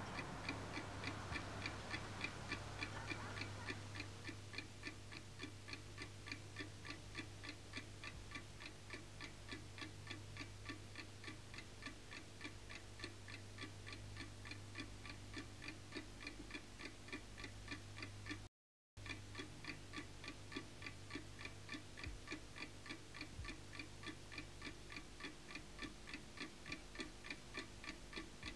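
Mechanical clock ticking at an even pace, a steady tick-tock over a low steady hum. The sound drops out for a split second about two-thirds of the way through.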